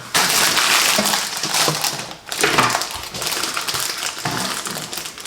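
Crinkly plastic snack packet being handled and opened, a loud rustling crackle that starts suddenly, pauses briefly about two seconds in, then carries on.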